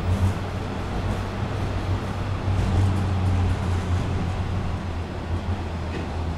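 Interior running noise of a Bombardier T-1 subway car in motion between stations: a steady rumble from the wheels and running gear with a constant low hum, heard from inside the passenger cabin.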